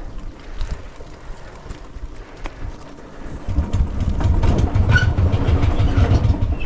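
Motorcycle moving down a rough concrete lane: a low rumble with scattered rattles and clicks, growing clearly louder and more pulsing about three and a half seconds in.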